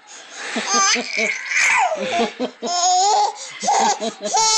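Five-month-old baby laughing in short, pulsing bursts, breaking into high-pitched squeals.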